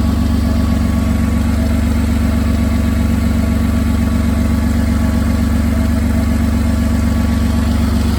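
Ford Contour engine idling steadily after a fuel pump replacement. Its exhaust needs repair, which the owner says makes it run loud.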